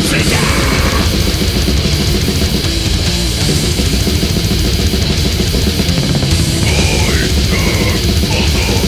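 Death metal music, loud and dense, with heavily distorted electric guitars.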